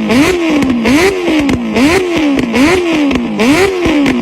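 Vehicle engine revved in repeated quick blips, about six, each pitch rising fast and sinking back, with a rattle of sharp crackling clicks. It falls back toward idle near the end.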